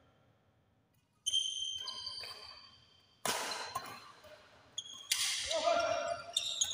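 Badminton rackets striking the shuttlecock in a doubles rally: three sharp hits about two seconds apart, each ringing on in the large hall.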